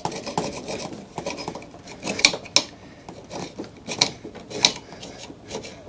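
Hand tool scraping and rubbing on a heavy metal bus bar, with several sharp metallic clicks and knocks, as the metal is scraped to check whether it is copper.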